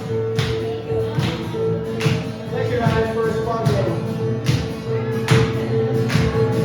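Live worship music with a steady beat: percussive hits about every second over a long held note and bass.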